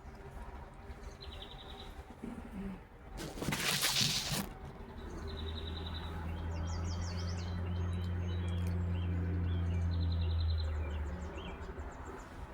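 Small birds chirping in short, rapid high trills several times. A loud rush of noise lasts about a second, starting about three seconds in, and a low steady drone runs from about five seconds in until near the end.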